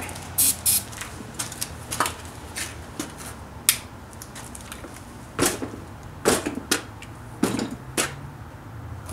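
Irregular sharp clicks and knocks, about a dozen, as starting fluid is lit at a snowblower tire to try to seat its bead; the louder knocks come in the second half.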